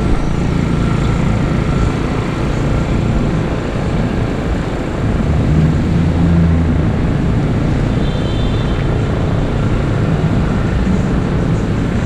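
City street traffic: a steady low rumble of vehicle engines, swelling as a vehicle passes about six seconds in.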